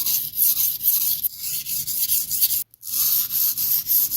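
Steel knife edge scraped back and forth on a coarse 240-grit sharpening stone in quick repeated strokes, grinding in a new, lower-angle bevel. There is a very brief break about two-thirds of the way through.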